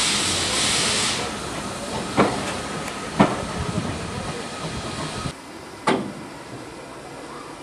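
A departing steam locomotive hisses loudly, and the hiss drops away about a second in; its carriages roll past with a low rumble and two sharp clanks of wheels over rail joints. A single knock follows near the end.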